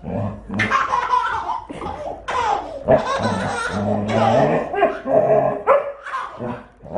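A baby laughing while a large dog barks at it, the sounds running on almost without pause.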